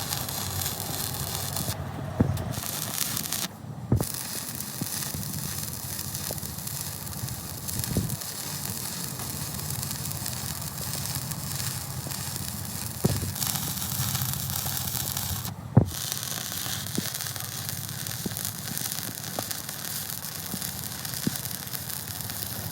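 Workshop noise: a steady crackling hiss with a few sharp metal knocks, the loudest about 16 seconds in.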